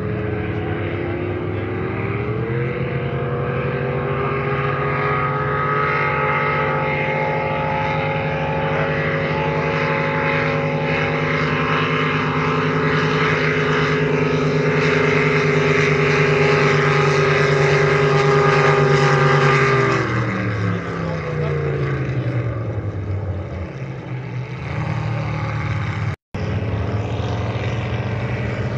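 Racing powerboat engines running at high revs. The note climbs about two seconds in and holds steady, then drops in pitch and fades about twenty seconds in. After a brief cut-out near the end, engines are heard again.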